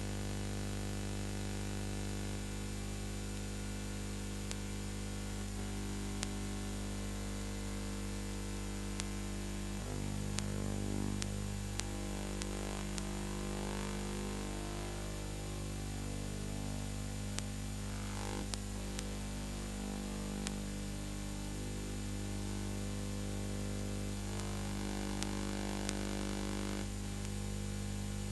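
Steady electrical mains hum with hiss and a few scattered clicks: the noise of an empty audio track, since the film itself has no sound.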